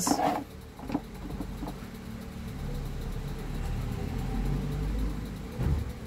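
A low, steady rumble that swells over several seconds and eases off near the end, with a few faint knocks as the fan's motor head is handled and fitted onto its plastic stand.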